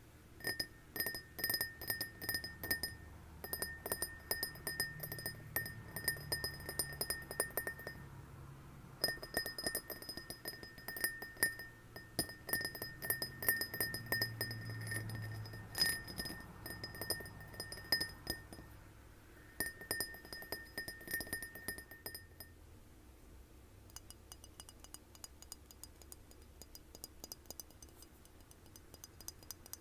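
Rapid tapping on a glass, each tap leaving a clear ring, in runs of a few seconds with short pauses between them. Near the end the tapping turns lighter, with a higher ring.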